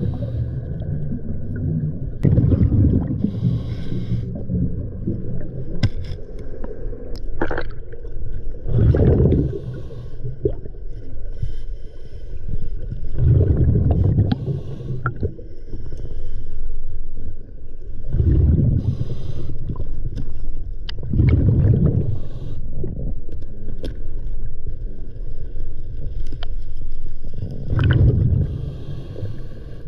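Scuba diver's regulator underwater: exhaled air bubbles gurgle out in a burst every few seconds. Sharp clicks and scrapes come between the breaths as gloved hands handle debris on the river bed.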